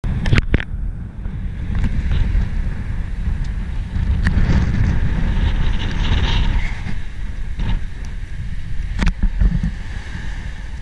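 Wind buffeting the microphone in an uneven low rumble, over the wash of small sea waves, with a few sharp clicks.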